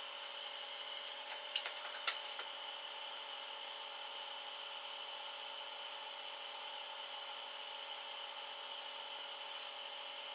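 Quiet room tone: a steady hiss with a faint hum, broken by a few light clicks about one and a half to two seconds in and once more near the end.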